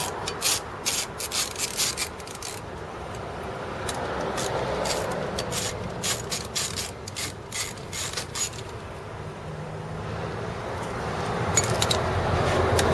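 Socket ratchet clicking in quick runs as bolts on a motorcycle's alarm cover plate are loosened, with the pawl ratcheting on the back-strokes.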